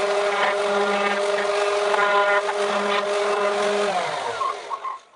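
Electric power tool running steadily at full speed, then switched off and winding down, its pitch falling as it stops about four seconds in.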